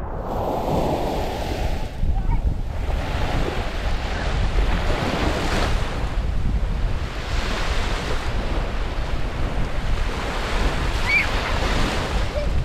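Small surf washing onto a sandy beach, with wind buffeting the microphone and adding a heavy low rumble.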